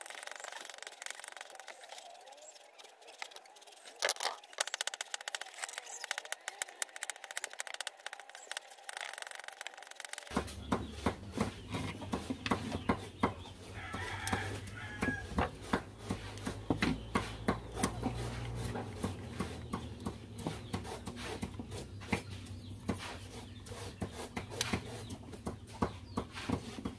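Chickens clucking in the background over many small clicks and taps of wires and a plastic electrical plug being handled and screwed together. A low steady hum comes in abruptly about ten seconds in.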